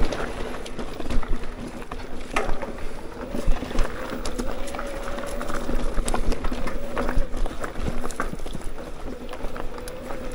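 Mountain bike being ridden along a dirt trail: steady tyre and ground noise with frequent sharp clicks and rattles, and a steady mid-pitched whine that drifts slightly in pitch.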